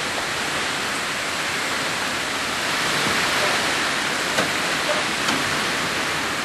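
Steady rushing noise with a few faint clicks.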